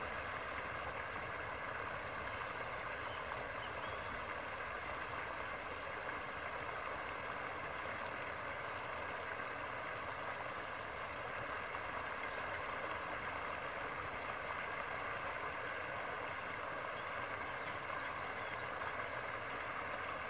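Stream water pouring over a low weir, a steady, even rush of water.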